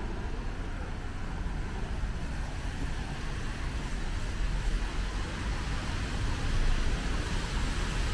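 Steady city street noise of road traffic on rain-wet streets: a continuous low rumble with a hiss over it, swelling a little as vehicles pass.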